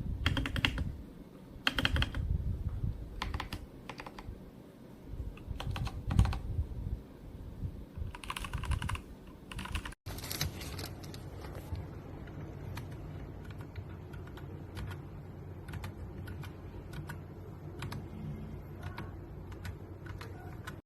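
Typing on a Royal Kludge RK R87 mechanical keyboard: keys clacking in scattered groups at first, then a steadier run of quick keystrokes after a cut about halfway through.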